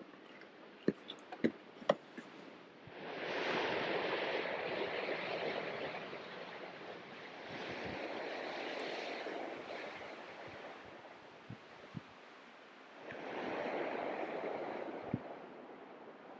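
Strong mountain wind gusting over the microphone in three surges, about three, eight and thirteen seconds in. A few sharp clicks come in the first two seconds.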